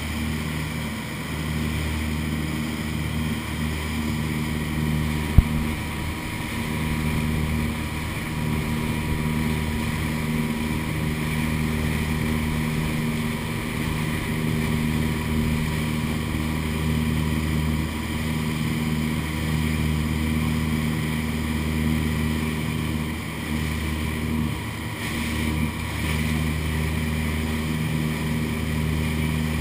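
Motorboat engine running steadily while the boat is under way, with a constant rush of air and water. A single sharp click sounds about five seconds in.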